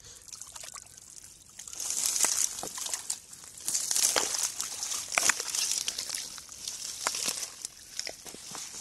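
Bare hands digging and groping through wet mud and shallow muddy water among water hyacinth: wet squelching and sloshing with many small crackly clicks, louder from about two seconds in.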